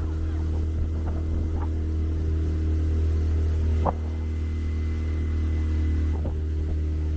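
A boat's engine running steadily under way, a continuous low drone, with one short click about four seconds in.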